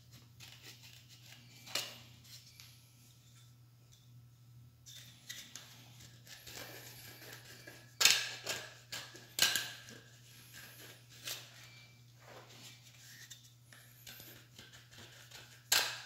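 Small metal tool scraping paint off the plastic ring of a painted System Sensor smoke detector, in irregular short strokes, with a few louder scrapes about halfway through and one near the end. A steady low hum runs underneath.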